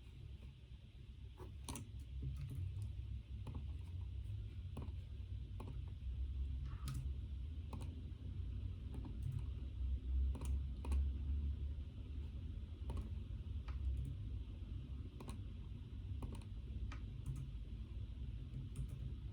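Typing on a computer keyboard: irregular, scattered keystroke clicks over a steady low hum.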